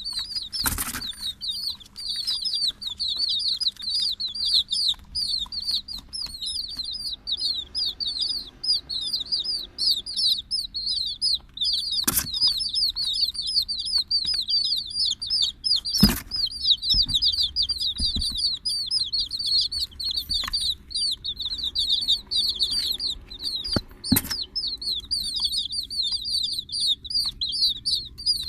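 Several chicks peeping in high, rapid, overlapping chirps without a break, with a few sharp knocks scattered through.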